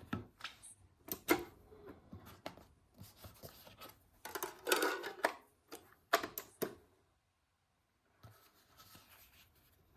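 Plastic clicks and rubbing from a CD clock radio being handled and its buttons pressed. There are about a dozen separate clicks over seven seconds, with a short rubbing noise about four to five seconds in.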